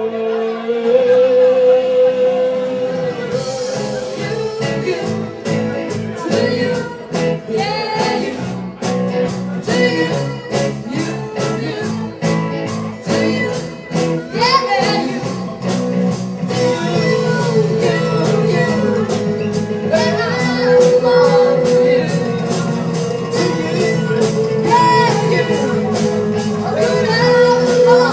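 Live band playing a song: male and female voices singing together over acoustic and electric guitars, bass and a drum kit, with the drums' steady beat coming in a few seconds in.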